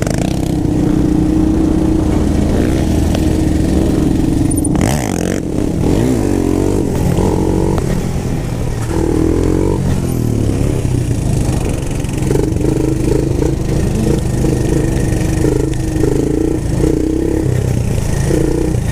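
Four-wheeler (ATV) engine running and being revved, its pitch rising and falling in waves as the throttle is worked.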